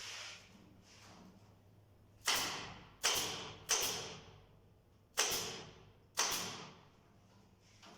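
Five sharp knocks at uneven intervals, each ringing out briefly with an echo, typical of work on the wooden cage parts.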